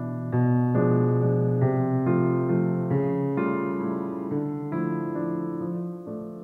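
Background music: a slow, soft piano melody, with a new note about every half second.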